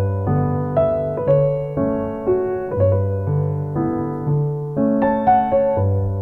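Background piano music: a gentle melody of notes struck at an even pace, about two a second, over held bass notes.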